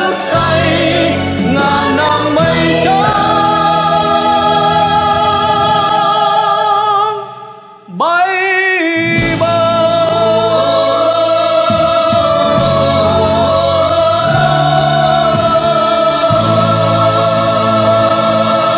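A male soloist singing in Vietnamese with a choir and orchestra. The music falls away briefly about seven seconds in, then swells back with a rising phrase into long held notes with vibrato.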